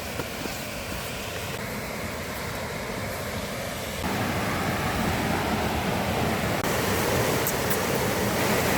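Steady rush of a waterfall's falling water, growing louder, with a jump in level about four seconds in and another near seven seconds.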